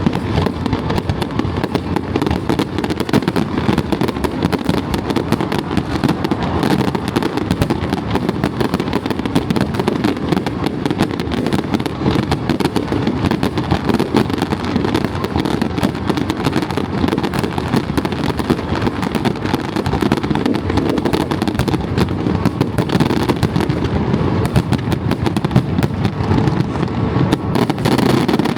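Fireworks going off in a continuous, dense barrage of bangs and crackles with no break.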